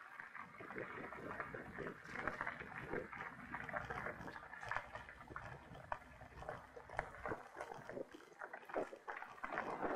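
Mountain bike rolling over a dirt trail: irregular crunching and rattling from the tyres and bike, over a low rumble.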